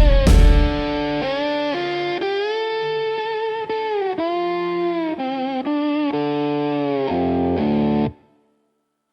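Instrumental country-rock music: an electric guitar plays a slow lead melody with bent, wavering notes over a bass line, opening on a loud low hit. The music stops abruptly about eight seconds in, leaving silence.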